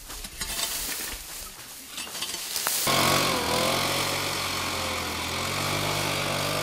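Leafy branches sweeping and scraping through dry leaf litter, then from about three seconds in a backpack leaf blower's small engine running steadily with a slightly wavering whine.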